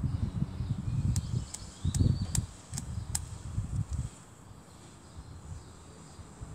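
Six sharp, evenly spaced clicks, about two and a half a second, over a low rumbling that dies down after about four seconds.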